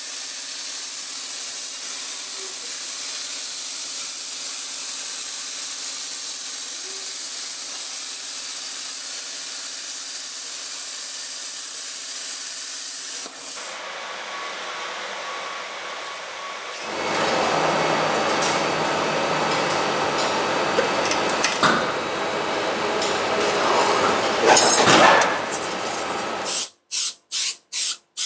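A CNC cutting torch hisses steadily as it cuts steel plate, with a faint steady hum under it, for about the first half. Later comes louder workshop machine noise, likely from a press brake, with a few sharp clicks. Near the end an aerosol spray can is fired in short bursts.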